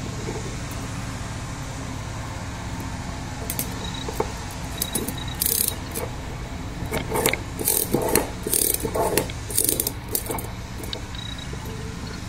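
Steel forceps twisting wire ligatures tight around an arch bar on a plaster dental model: scattered metal clicks, clinks and short scrapes, thickest in the second half, over a steady low hum.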